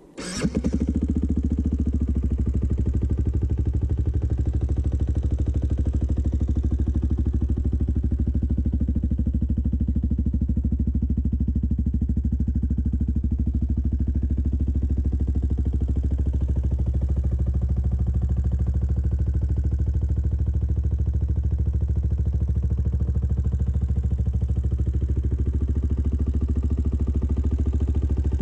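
Yamaha WR125X's single-cylinder four-stroke engine comes in suddenly right at the start, then idles steadily and evenly.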